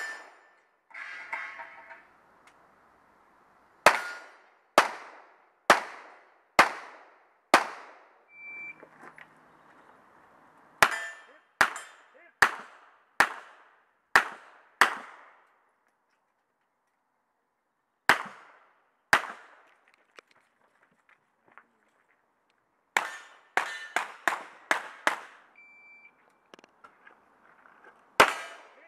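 Handgun shots fired in strings during a practical shooting stage. About five shots roughly a second apart come first, then six in quicker succession, then two more, then a fast burst of about seven near the end. Each is a sharp crack with a short echo, and there are two short high beeps between the strings.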